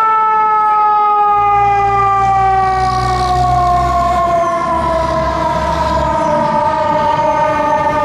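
Fire truck siren winding down in one long, slowly falling tone. Beneath it, the ladder truck's engine rumbles low as it passes, from about a second in until about six seconds in.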